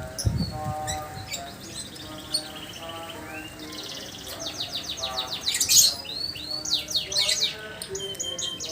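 Lovebird chattering in a long ngekek song: a fast, even high-pitched trill about three and a half seconds in, with sharp chirps, loudest near the six-second mark.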